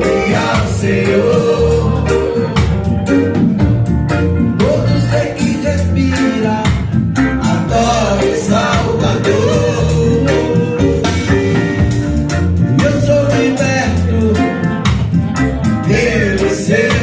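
Gospel song: a singer over a band with heavy bass and drums keeping a steady beat, played loud through a church sound system.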